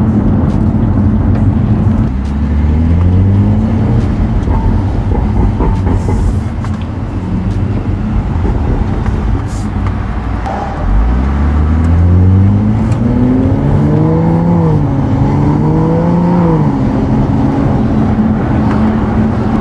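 Turbocharged N55 inline-six of a BMW 335i with a catless downpipe and stock muffler, heard from inside the cabin while driving. The engine note climbs under acceleration about two seconds in and again from about eleven seconds, then rises and falls twice before settling to a steady note near the end.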